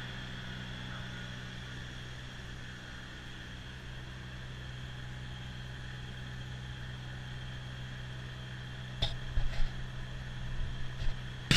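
Kubota BX2660 compact tractor's three-cylinder diesel running steadily with its front-mounted snowblower spinning, a constant drone with a whine over it. About nine seconds in, a few sharp clicks and knocks, the loudest right at the end.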